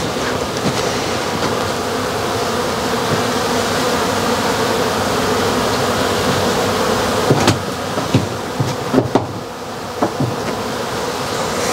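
Honeybees buzzing in a steady drone around freshly extracted honey, with a few light knocks in the second half.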